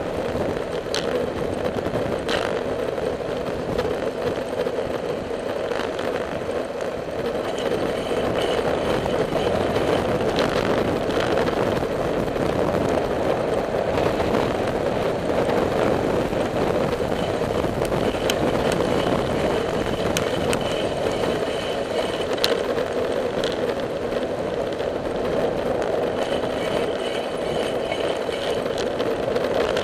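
Steady rushing noise from a bicycle rolling along a paved trail: wind over the bike-mounted microphone and tyre noise on the asphalt. Brief light clicks and rattles come through now and then.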